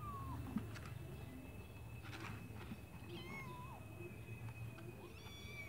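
Young kittens mewing: about three short, thin, high-pitched mews, each falling in pitch, spaced a few seconds apart.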